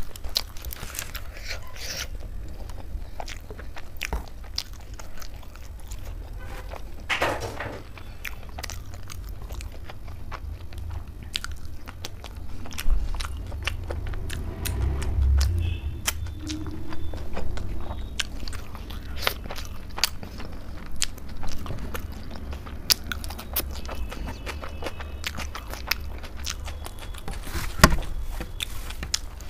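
Close-miked eating sounds: chewing and biting soft malai chaap and rumali roti, with many short wet smacks of lips and fingers as she licks her fingers.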